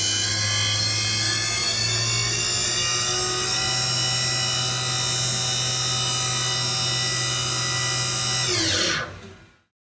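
Haas VF-1B CNC vertical mill spindle running at high speed, a steady whine of many tones that rises slightly over the first few seconds. About nine seconds in it spins down with a quickly falling whine and stops.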